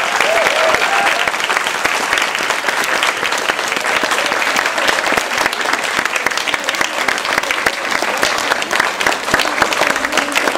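A large audience of schoolchildren applauding steadily, with a few high voices calling out in the first second.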